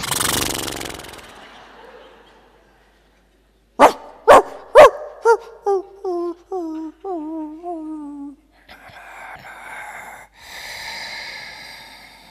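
A man imitating a dog with his voice: three sharp barks, then a run of about eight short whimpering yelps falling in pitch. Breathy hissing follows, and the tail of a loud vocal cry fades out at the start.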